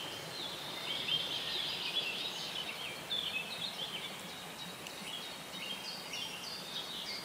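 Birds chirping and singing in quick, short, sliding notes over a steady outdoor hiss.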